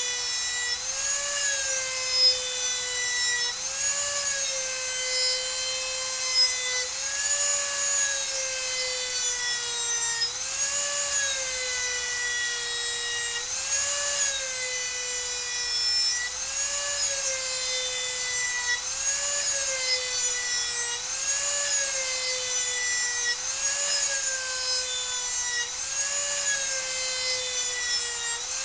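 Dremel rotary tool grinding the edge of a lawn mower blade, blade still on the mower. A steady high-pitched motor whine sags and recovers about every two seconds with each stroke of the grinding bit along the edge.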